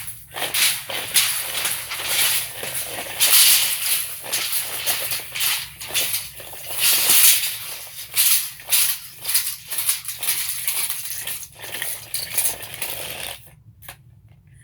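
Loud rustling and clattering handling noise with many sharp clicks as tape measures are picked up and handled close to the microphone; it stops about a second before the end.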